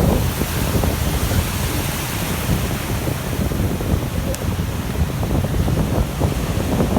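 Wind buffeting the microphone over the steady wash of surf on the beach, with one faint short tick about four seconds in.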